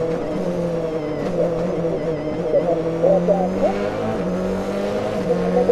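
Citroën Xsara WRC's turbocharged four-cylinder engine heard from inside the cockpit, running hard at high revs. The car drops from fourth to second gear and the engine note climbs a little about three seconds in as it pulls under full throttle.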